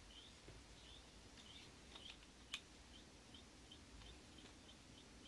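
Near silence: faint room tone with faint, short high chirps repeating two or three times a second, and one sharp click about halfway through.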